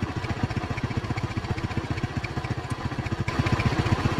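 Bajaj Boxer 100's small single-cylinder four-stroke engine running steadily at low revs in even, rapid pulses, a little louder in the last second.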